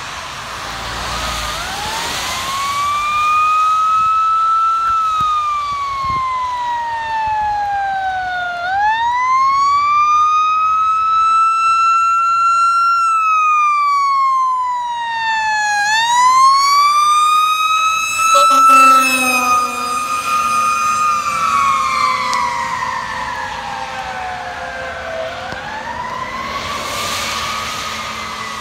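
Fire truck siren wailing in slow sweeps, each rising over a few seconds and falling back, repeating about every 7 to 9 seconds. A short low horn blast sounds partway through, and wet tyres of passing cars hiss near the start and end.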